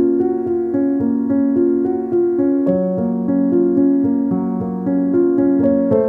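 Background music: keyboard notes and chords over a light, steady beat.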